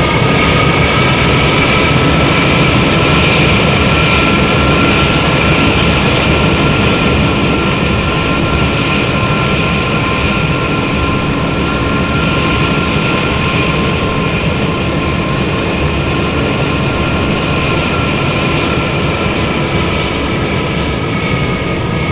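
Jet airliner engines running at high power: a steady roar with a high whine over it, easing slightly and beginning to fade near the end.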